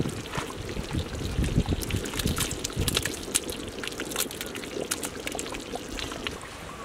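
Thick chicken curry being scooped up with a ladle and poured back into a large metal pot: wet slopping and splashing with irregular sharp clicks.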